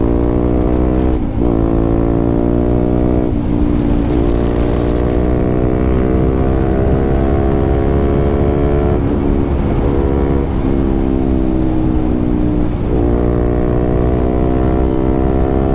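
KTM RC 200's single-cylinder engine running through an aftermarket SC Project exhaust while ridden under throttle. Its note climbs gently, broken by several short dips.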